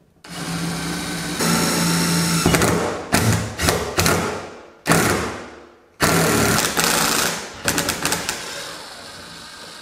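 DeWalt cordless impact driver driving a 10-32 tap into the steel switch box to cut a threaded hole, running in several bursts with short stops between them and quieter toward the end.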